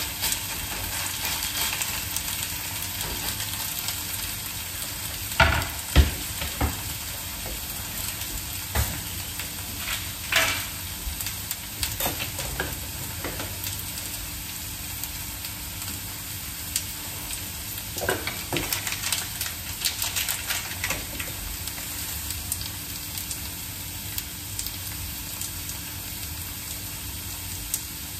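Shredded potato frying in a pan of hot olive oil, sizzling steadily. A few sharp knocks and clatters come about five to six seconds in and again around eighteen to twenty-one seconds.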